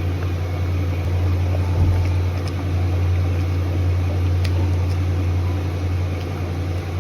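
Steady low mechanical hum with a faint rushing noise over it and a few faint clicks.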